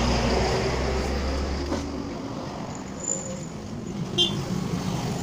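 Road traffic noise: a low rumble that stops about two seconds in, then a steady hum of traffic with a short click near the end.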